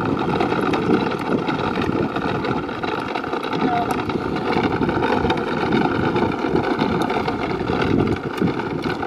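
Plastic wheels of a toddler's ride-on toy fire truck rolling over asphalt as it is towed by a string: a steady, continuous rumble.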